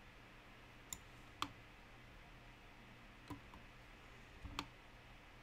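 A few sparse, quiet clicks from a computer mouse as the 3D view is moved, over a faint steady hum.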